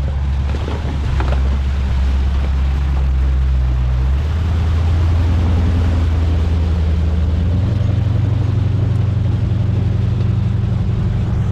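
Off-road 4x4 engine running steadily under load as it pulls a stuck vehicle out of a deep icy mud pit, its note stepping up about four seconds in and again near eight seconds.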